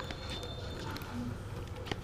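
Puppy eating kibble from a plastic bowl close up: scattered crunching and clicks of teeth and food against the bowl, with one sharper click near the end.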